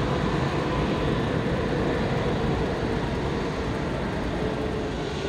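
Airbus A340-600's four Rolls-Royce Trent 500 jet engines running at taxi power: a steady rumbling rush with a faint held whine.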